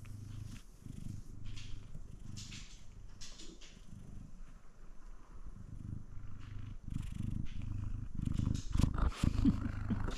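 F2 Savannah cat purring steadily in repeated in-and-out phrases while being scratched under the chin, close to the microphone. Near the end the purring grows louder and several bumps and rubbing noises come in as the cat's face meets the phone.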